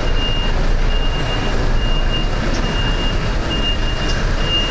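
A vehicle's reversing alarm beeping, a high tone repeating about once a second, over the low rumble of city traffic.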